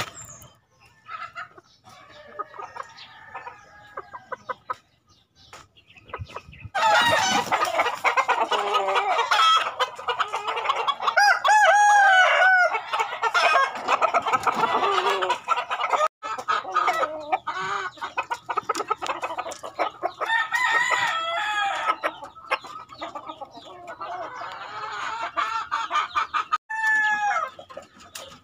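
Roosters crowing and chickens clucking at feeding time. The calls start in earnest about seven seconds in, and several drawn-out crows stand out above the clucking.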